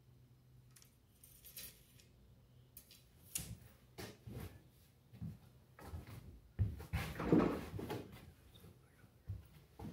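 Scattered knocks and thumps from a person moving around a pool table and setting a cue down, with a louder, longer clatter about seven seconds in.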